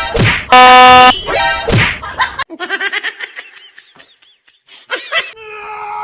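A train horn blasts very loudly for about half a second, just after the start, and is met by high-pitched shrieking and laughter. About five seconds in, a steady horn tone starts and grows louder.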